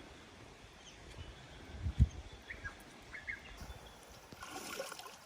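Quiet outdoor ambience with a few faint, short bird chirps, a single low thump about two seconds in, and a soft hiss rising near the end.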